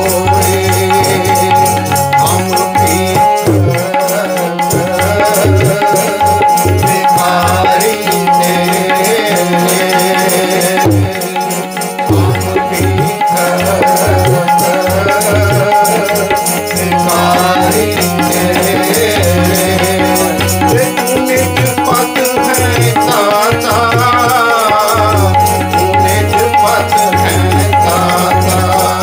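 Sikh kirtan music: a harmonium holding steady chords, with tabla keeping a beat under it. A man's voice sings a melody at times over the harmonium.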